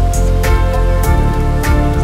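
Background music: sustained held notes over a low bass, with a steady beat of sharp percussive hits.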